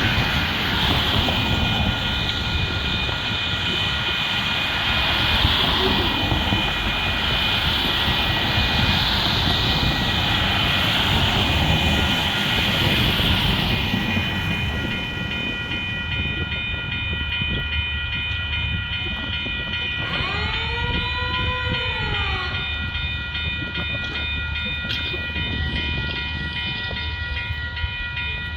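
Lift bridge in operation: a steady whine of several tones over a low rumble, with a hiss that fades about halfway through and a short rising-then-falling tone about 20 seconds in.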